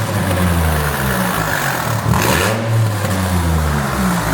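Nissan 350Z's V6 running and being revved through its old exhaust, the pitch rising and falling with each blip of the throttle. It sounds atrocious, as if the exhaust isn't even connected.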